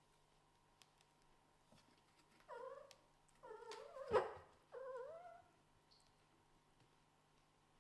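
Scottish Fold–British Shorthair cross kittens crying out three times in short squealing meows while play-fighting. A sharp knock in the middle of the second cry is the loudest sound.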